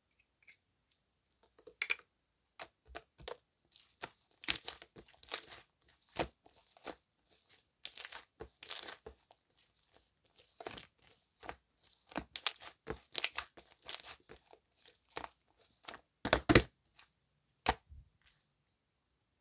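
Gel squishy toy with foam worked into it, squeezed and kneaded by hand: irregular crackling and squelching pops, with a louder cluster near the end.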